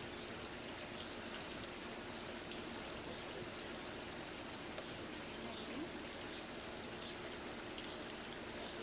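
Steady faint outdoor background hiss, with faint short high chirps scattered through it every second or so.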